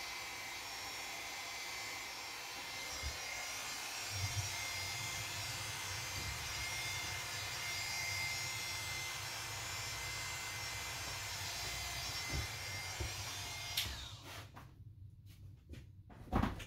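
Electric hair clipper running steadily against the scalp, switched off about fourteen seconds in; a sharp knock near the end.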